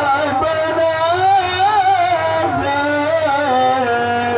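A man's amplified voice reciting the Quran in the melodic tilawah style, with long held notes that waver and turn in ornamented runs without a break.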